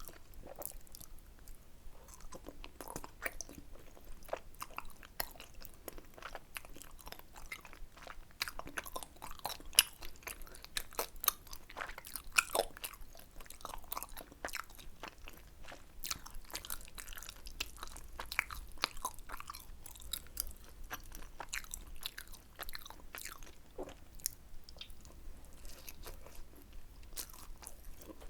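Close-miked chewing and biting of tteokbokki, spicy Korean rice cakes: a continuous run of sharp, crisp mouth clicks and crunches, with a few louder ones in the middle.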